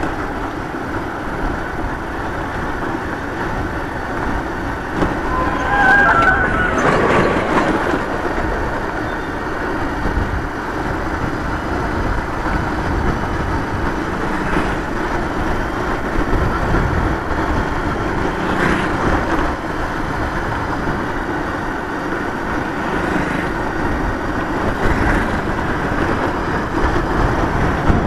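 Motorcycle riding along an open road, heard from the bike: steady engine and road noise. A short high-pitched sound comes about six seconds in.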